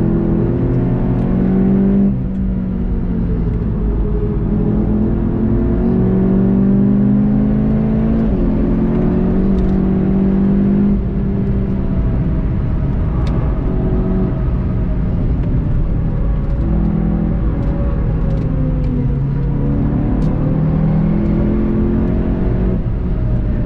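VW Golf 7.5 GTI TCR's turbocharged 2.0-litre four-cylinder engine heard from inside the cabin while lapping hard, its pitch climbing under acceleration and falling at shifts and braking. Clear drops in engine note come about two seconds in and again about eleven seconds in.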